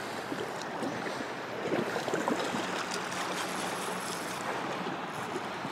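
River current rushing steadily.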